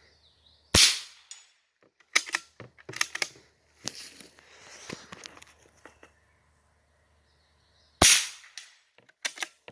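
Two shots from a CZ 452 bolt-action .22 LR rifle, about seven seconds apart, each a sharp crack with a short tail. Between them are quieter metallic clicks and rattles from working the bolt to chamber the next round.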